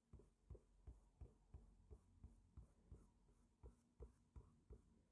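Faint, even dabs of a kneaded eraser pressed onto a paper pad, about three a second, lifting pencil graphite so the sketch lines go paler.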